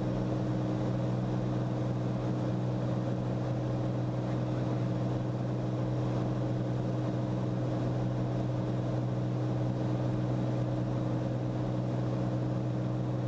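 Steady cabin drone of a Cirrus SR22T in flight: its turbocharged six-cylinder engine and propeller running at a constant setting, a deep even hum with a few overtones and no change in pitch.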